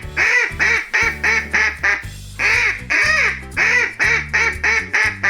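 Duck quacking in rapid repeated quacks, two runs of them with a short break about two seconds in, over steady backing music.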